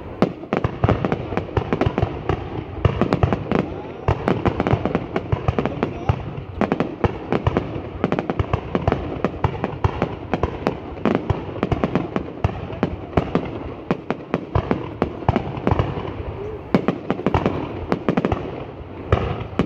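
Fireworks going off: a dense, unbroken run of sharp cracks and bangs, many each second.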